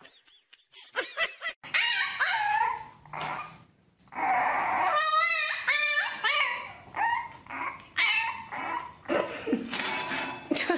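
A dog whining and yipping in a string of pitch-bending calls, with a longer wavering cry about five seconds in.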